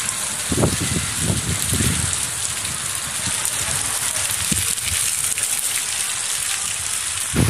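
Heavy rain pouring down steadily, with a dense, even hiss of drops on wet pavement and roofs. A few low thumps come in the first two seconds and once more about halfway through.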